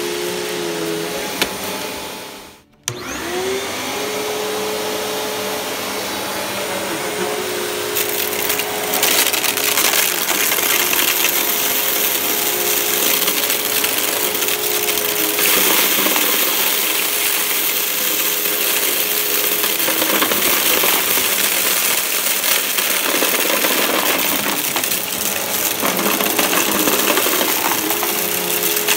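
Bagged Riccar upright vacuum cleaner running steadily over carpet, with a steady motor whine and hiss. The sound drops away briefly about three seconds in, then the motor comes back up. From about eight seconds in it turns louder and noisier, with gritty crackling, as it sucks up loose dirt and debris.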